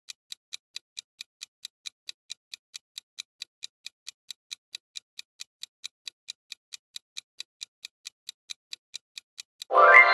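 Countdown-timer sound effect: clock-like ticking, about four to five ticks a second, ending just before the end in a loud, bright chime that rings on and fades, marking time up and the answer being revealed.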